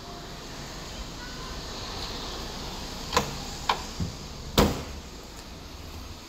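A few sharp knocks, then one louder thump about four and a half seconds in, a car's trunk lid being shut, over a steady low hiss.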